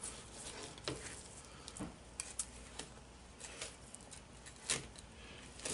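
A stiff-bladed fillet knife working through the hard, armored scales and skin of a longnose gar as the skin is bent open, making irregular small clicks and crackles, with one sharper click about three-quarters of the way through.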